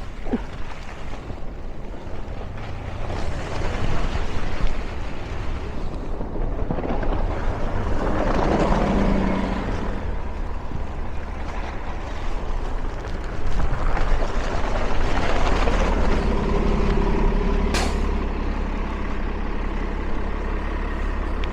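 Street traffic on a snowy avenue: vehicles drive past in swells, and a truck's engine runs steadily in the latter part. A single sharp click sounds near the end.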